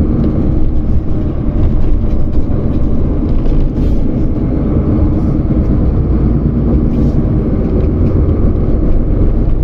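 Steady low rumble of a moving vehicle's engine and road noise, heard from inside the cabin.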